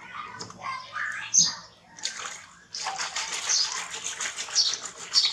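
Water splashing and sloshing in a plastic washbasin as a hand swishes through it, starting about halfway through and going on steadily.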